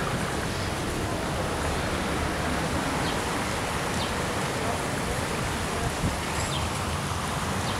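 Shallow stream running over its bed, a steady rush of water, with a few faint high chirps.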